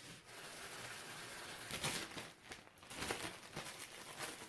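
Soft rustling and crinkling handling noise from preparing the spiced chicken marinade, with a few sharper crackles about two and three seconds in.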